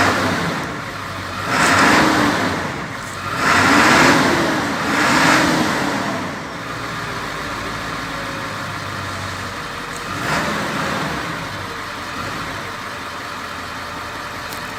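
Ford 7.3 L turbo-diesel V8 idling and revved about five times, each rev rising and falling back, most of them in the first six seconds. It is running normally after a new camshaft position sensor cured a crank-no-start.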